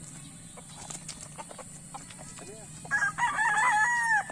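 A gamecock rooster crows once, about three seconds in: a loud call of several wavering notes that ends in a long held note dropping away at the close.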